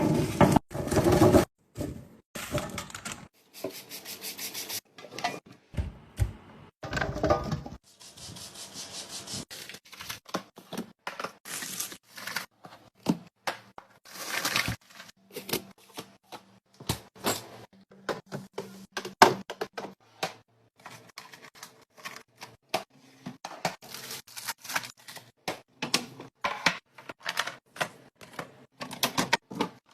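Food packaging and containers being handled, opened and set down: a steady stream of clicks, taps and rustles.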